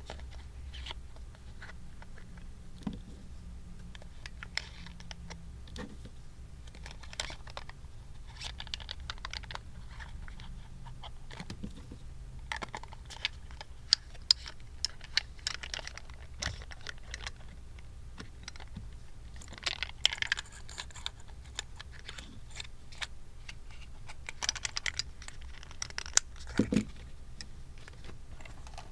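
Small hard clicks and rattles of pens knocking together as they are handled, in irregular clusters over a steady low hum.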